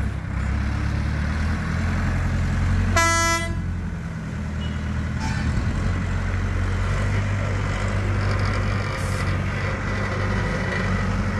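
Diesel engine of a wheeled mobile crane running steadily under load as it lifts a harvester, with one short horn toot about three seconds in.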